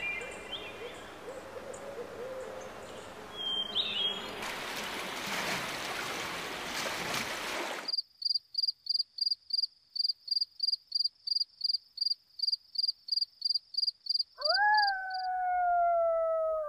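A sequence of wild soundscape recordings. First an outdoor background with a few short bird chirps, then a loud rushing noise for a few seconds, then a high-pitched call pulsing steadily about three times a second. Near the end a canid's long howl begins, rising and then slowly sliding down in pitch.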